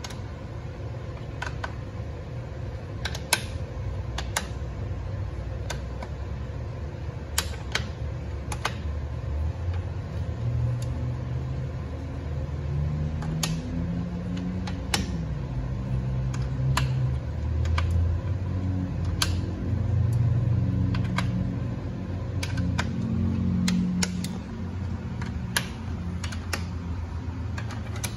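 Scattered sharp metallic clicks and taps from a socket and dial torque wrench being fitted to and tightened on the valve-body bolts of a TH350 automatic transmission, bolt by bolt. Under them runs a steady low mechanical hum that grows louder in the second half.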